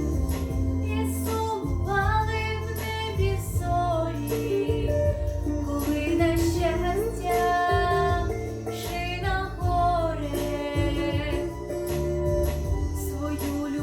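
A teenage girl singing a pop song with instrumental accompaniment and a steady bass underneath.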